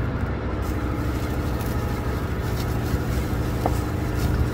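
Steady low hum of a tugboat's onboard machinery filling the galley, with a few faint clicks from handling at the counter.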